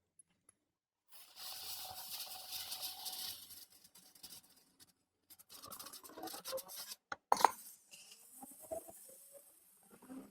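Scratchy rubbing on a laptop motherboard as leftover solder flux is scrubbed off with alcohol, in several spells, with one sharp click about seven seconds in.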